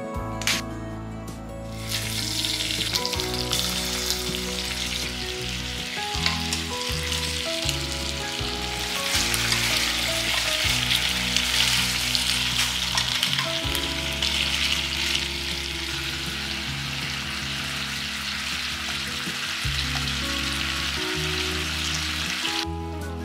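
Chicken leg pieces sizzling as they fry in sesame oil in a pot. The sizzle starts about two seconds in, is loudest midway, and stops shortly before the end. Soft background music plays throughout.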